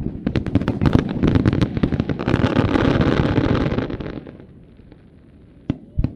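Fireworks exploding in a rapid barrage of bangs and crackles that dies away about four seconds in, followed by two single bangs near the end.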